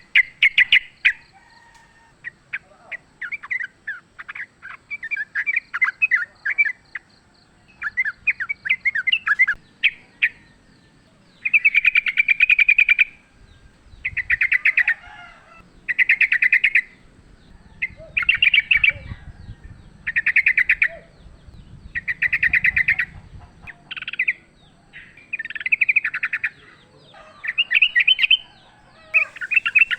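Yellow-vented bulbul singing in repeated bursts of rapid, bubbling notes. The phrases, each about a second long, come every couple of seconds.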